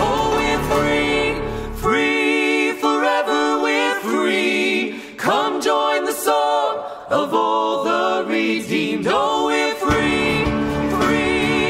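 Worship band singing in harmony, male and female voices. About two seconds in, the low accompaniment of acoustic guitar, cajon and piano drops out, leaving the voices nearly a cappella. The band comes back in near the end.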